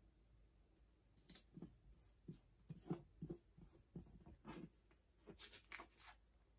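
Fingertips pressing and smoothing a paper sticker onto a planner page: a string of faint, irregular taps and paper rustles, starting about a second in and stopping near the end.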